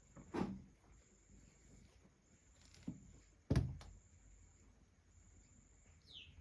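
Soft knocks and thumps, the loudest a sharp thud about three and a half seconds in, over a faint on-off insect chirring; a brief falling chirp near the end.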